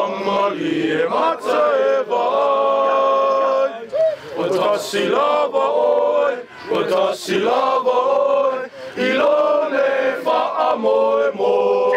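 A group of young men singing together in chorus, a slow song with long held notes and short breaks for breath.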